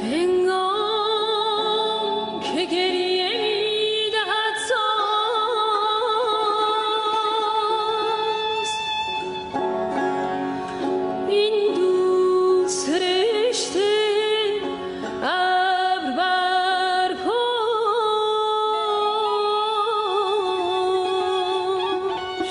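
Persian song: a woman singing a slow, wavering, ornamented melody over plucked string accompaniment.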